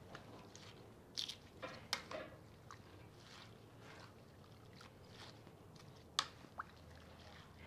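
Faint, wet rustling of a vinegar-dressed shredded cabbage, carrot and onion slaw being tossed with spoons in a clay bowl. A few light clicks come about a second in and again around six seconds.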